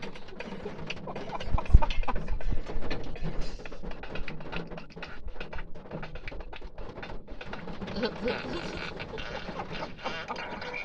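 Indistinct voices in a car cabin over a jumble of small clicks and knocks, with a heavy low thump a little under two seconds in.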